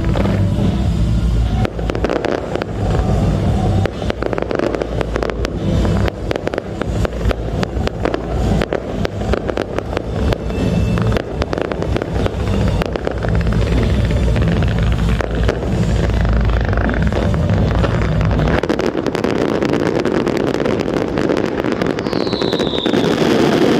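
Fireworks bursting and crackling over loud music with a heavy drum beat. About 19 s in the music drops out, leaving the dense crackle and rumble of the fireworks, with a short falling whistle near the end.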